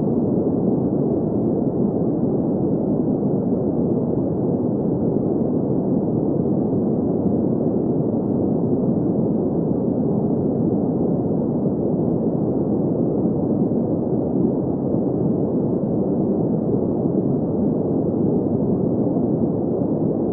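Green noise: a steady, unbroken hiss concentrated in the middle-low range, with no highs above about 2 kHz, and no change in level.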